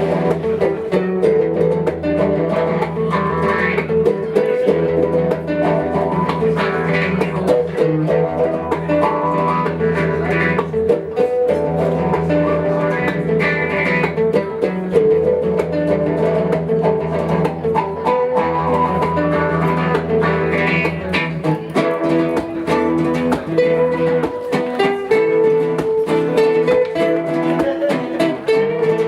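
Instrumental music played live: plucked guitar notes over sustained low bass notes, without singing.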